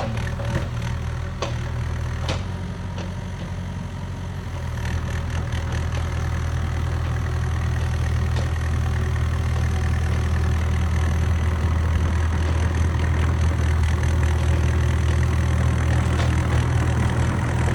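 Cat 305 mini excavator's diesel engine running steadily, its hum getting somewhat louder about four and a half seconds in. A couple of sharp knocks sound near the start.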